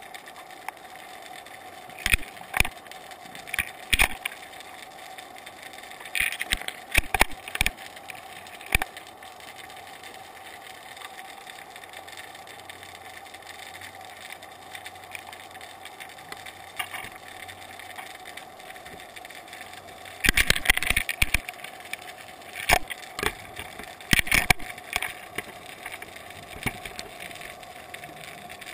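Underwater sound picked up through a GoPro's waterproof housing: a steady faint hum with irregular clusters of sharp clicks and knocks, the loudest bunch about twenty seconds in.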